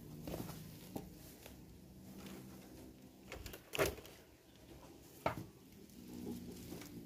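A few sharp knocks and thumps, as of wood being bumped while moving through a shed, over a faint low hum. The loudest knock comes a little past halfway, with another sharp click about a second and a half later.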